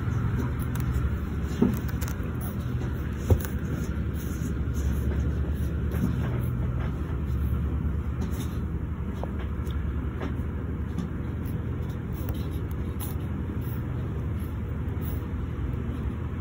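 Steady low background rumble, with two short knocks about one and a half and three seconds in.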